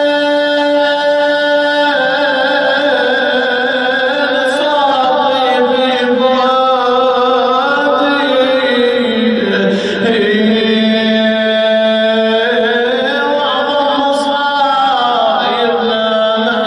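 A man's solo voice chanting a slow, melodic religious recitation, with long held notes that glide down and up in ornamented turns.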